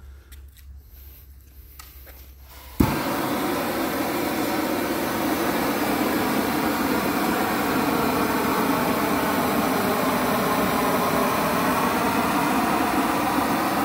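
Shrinkfast propane shrink-wrap heat gun lighting with a sudden start about three seconds in, then burning with a steady rush as it is played over the single-ply shrink wrap on the side of a pallet.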